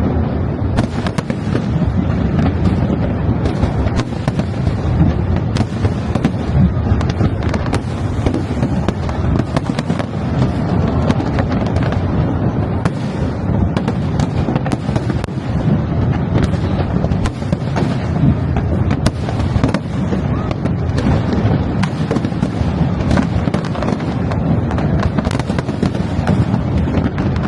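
Aerial fireworks in a continuous barrage: dense overlapping bangs and crackling, with many sharp cracks throughout.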